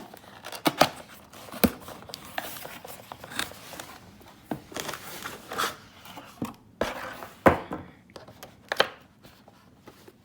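A cardboard box and its packaging being opened and handled by hand: irregular sharp knocks and clicks with rustling and crinkling between them.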